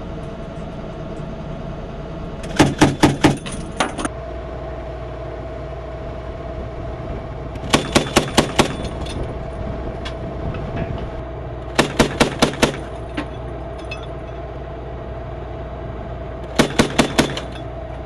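Mk 19 40 mm automatic grenade launcher firing four short bursts of four or five rounds each, about six rounds a second, over a steady vehicle hum.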